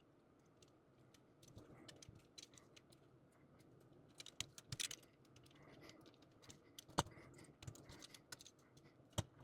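Faint, scattered clicks and taps of small plastic model-kit parts being handled and fitted together, with a sharper click about seven seconds in.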